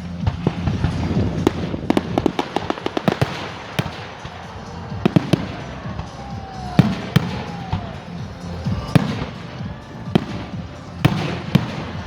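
Aerial fireworks exploding: a rapid run of crackling bangs in the first few seconds, then single booms every second or two, with a faint falling whistle near the middle. Music plays underneath.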